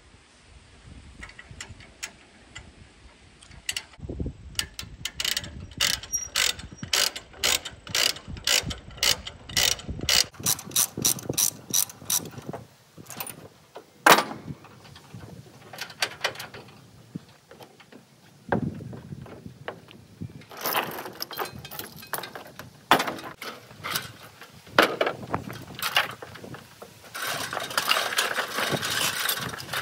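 Ratchet strap being cranked to cinch down a load, the pawl clicking evenly about two to three times a second, then slower, louder clicks with one sharp knock about halfway through and denser clicking and rattling near the end.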